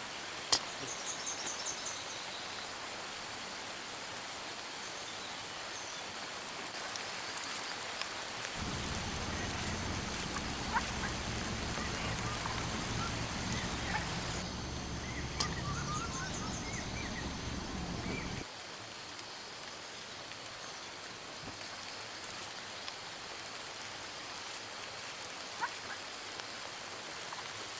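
Steady hiss of rain in forest, with a short chirping trill near the start and scattered chirps in the middle. A low hum comes in suddenly about eight seconds in and stops abruptly some ten seconds later.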